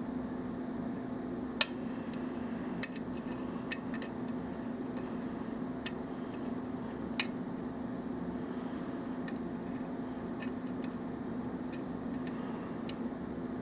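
Scattered sharp metallic clicks of a lock pick working the pin stack of a Russwin euro-cylinder lock during single-pin picking, about a dozen at irregular intervals, over a steady low hum.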